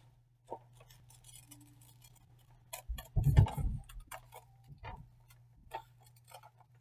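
Scissors snipping through notebook paper: a string of small, irregular clicks, with one louder low thump a little over three seconds in.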